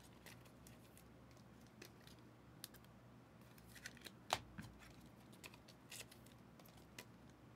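Near silence with a few faint clicks and rustles of trading cards being handled, the clearest about four seconds in.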